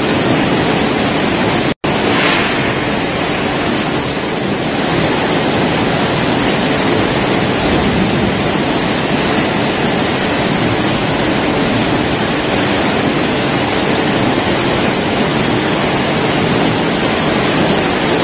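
Potato processing machine on a French fry production line running: a steady, even rushing hiss with no clear pitch. It drops out for an instant about two seconds in.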